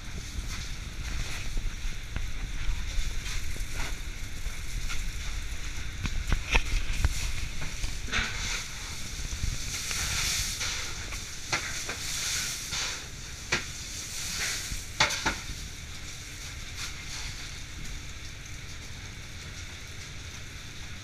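Fish being packed by hand in a fishing boat's fish room: a steady rustling hiss with scattered knocks and clatters, busiest in the middle, over a constant low rumble.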